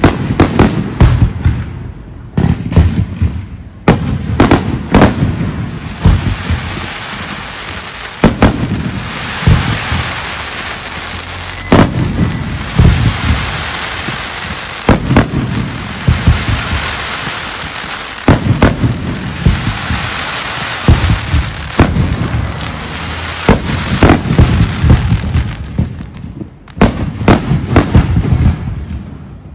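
Professional fireworks display: aerial shells bursting in quick succession, many sharp bangs, some in rapid clusters. Through the middle stretch a dense crackling runs between the bangs.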